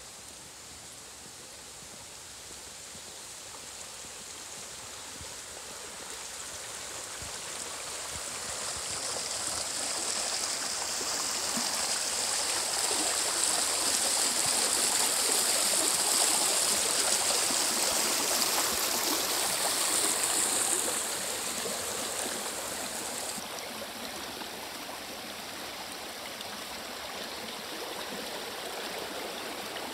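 Shallow stream running over a stony bed. The rushing grows louder over the first dozen seconds, is loudest through the middle, and drops back somewhat about 21 seconds in.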